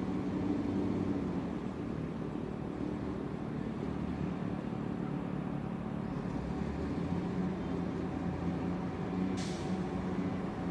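Steady low engine rumble with a few faint steady tones, and a short hiss about nine seconds in.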